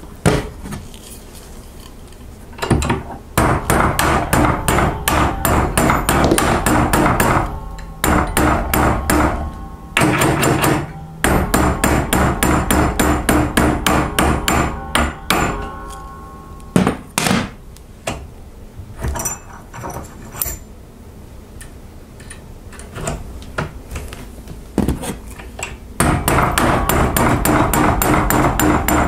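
Hand hammer striking a small steel piece clamped in a bench vise, in quick runs of blows, several a second, broken by pauses. A few single blows fall in a quieter stretch in the middle.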